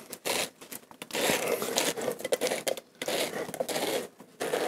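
Hand-held stainless-steel pineapple corer and slicer twisted down into a pineapple, its spiral blade crunching and tearing through the juicy flesh and fibrous rind. The crunching comes in several bursts with short pauses between turns of the handle.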